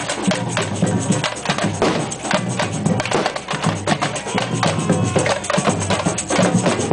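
Percussion band drumming in a fast, steady rhythm: deep drums underneath, with dense wood-block and shaker-like strikes on top.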